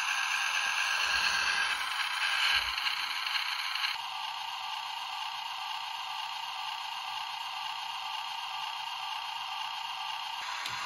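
Truck engine sound played by the small sound module in a 1:87-scale micro RC truck through its tiny speaker: a thin, steady running noise with no bass. It drops a little in level about four seconds in.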